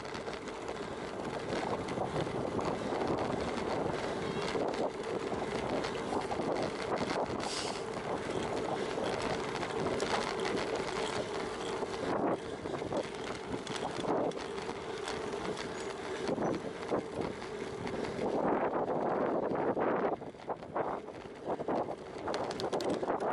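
A bicycle rolling along a tarmac path, heard from a camera mounted on the bike: steady tyre and wind noise with a steady hum, which eases briefly about twenty seconds in.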